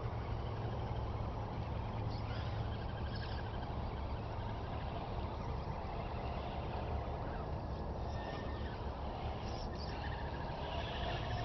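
Radio-controlled scale trucks crawling through mud, their electric motors and gears whining faintly and rising and falling with the throttle, over a steady low rumble.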